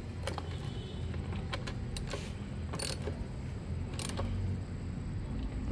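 Scattered light metallic clicks and clinks of tools and parts being handled on a car under repair, over a steady low hum.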